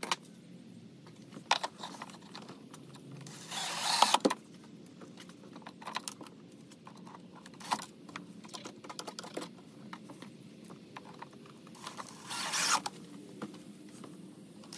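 Cordless drill driving screws through an RCA distribution block's mounting tabs into wood: short runs of the drill, each under a second, about four seconds in, near twelve seconds and again at the end. Scattered clicks and knocks of the block and tools being handled come in between.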